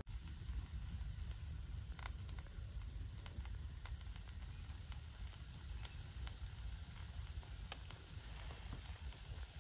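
Paneer tikka skewers on a charcoal grill, with scattered small crackles and pops from the hot coals and ghee-basted food, over a low steady rumble.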